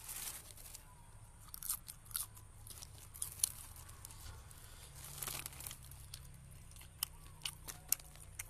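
Thin clear plastic bag crinkling and rustling as hands pick food out of it, in scattered sharp crackles with two longer rustles, one at the start and one about five seconds in.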